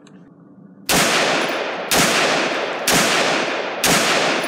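BCM 11.5-inch AR-15 carbine firing 5.56 rounds one at a time through a Geissele SD-3G trigger: four shots about a second apart, each ringing out in a long echo that fades almost to the next shot. The fire is slow and deliberate, not bump fire.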